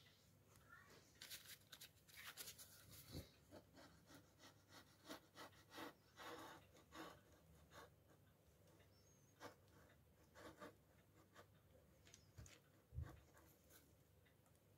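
Faint, quick scraping strokes of a steel putty knife lifting paint that paint stripper has softened and blistered off a wooden cabinet frame. The strokes come thick and fast for the first half, then thin out, with one dull knock near the end.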